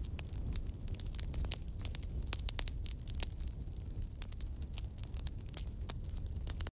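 White chicken curry simmering in a covered aluminium kadai over a low gas flame, with frequent irregular crackles and pops over a steady low rumble.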